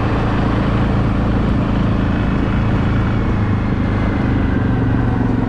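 Four-wheeler (ATV) engine running steadily under way, with a constant low engine note and road noise.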